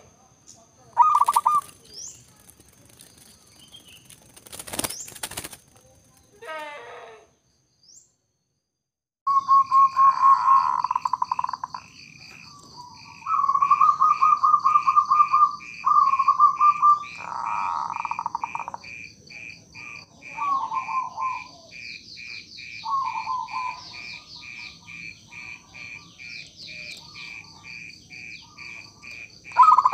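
Zebra dove (perkutut) cooing in bouts of rapid, evenly pulsed notes in the 'nritik' rhythm, starting about nine seconds in. Other birds chirp and a steady high insect-like whine runs behind it. Before that come scattered short calls and a brief noisy burst about five seconds in.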